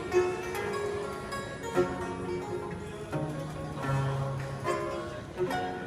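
Music on string instruments, mainly plucked notes, with fresh notes struck about every second and a half and a low note held for over a second midway.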